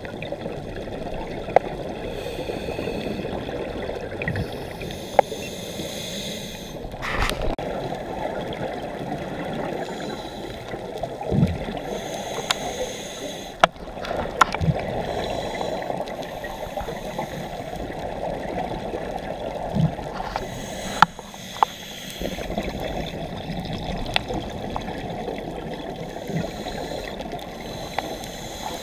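Underwater sound through a dive camera's housing: a steady muffled rush with gurgling bubbles from scuba regulators, and scattered sharp clicks and a few knocks.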